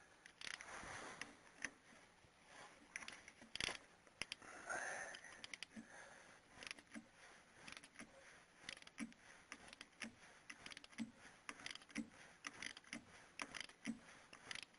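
Faint, scattered clicks and light scrapes of hand tools and metal parts being handled, with no steady machine running.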